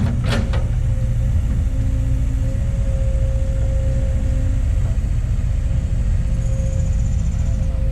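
Kobelco SK200 hydraulic excavator's diesel engine running steadily, a low rumble with a thin steady whine over it. A short sharp click about half a second in.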